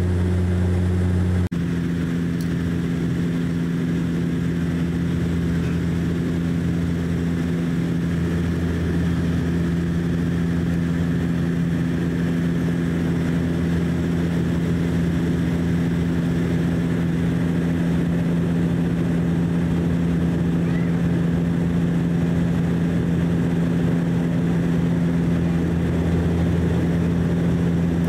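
Cabin drone of a DHC-8-Q400's Pratt & Whitney PW150A turboprops and propellers in the climb after takeoff: a steady, loud hum built of several low tones. About a second and a half in the sound briefly drops out and the tones settle at slightly different pitches.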